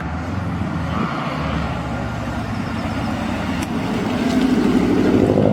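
A car engine running at low revs with steady low tones, growing louder in the last second or two.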